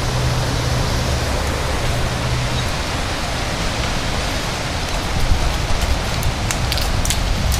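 Strong thunderstorm wind blowing, a steady loud rushing noise, with a few sharp ticks from about five seconds in.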